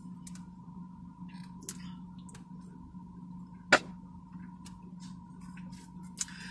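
Wet lip smacks and mouth clicks as thick milkshake is licked off a plastic drinking straw, with one sharp, loud click a little before four seconds in. A steady low hum runs underneath.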